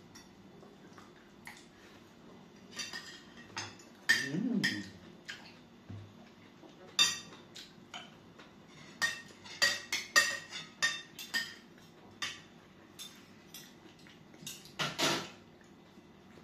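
Cutlery and ceramic tableware clinking and tapping at a meal: spoons and forks knocking against plates and bowls in irregular light clinks, busiest in the middle stretch.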